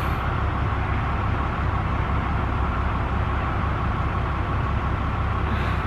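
A vehicle engine idling: a steady low rumble with no changes.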